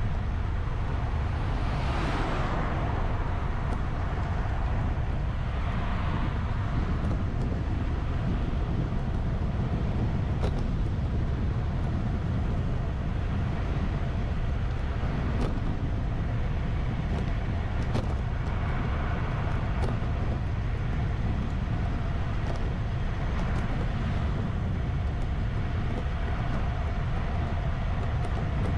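Steady low rumble of travel noise from a moving vehicle, with brief swells about two and six seconds in.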